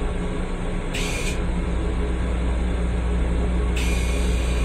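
Steady low hum and rumble of an M7 electric railcar, heard inside its small restroom. A brief high hiss comes about a second in, and another starts near the end.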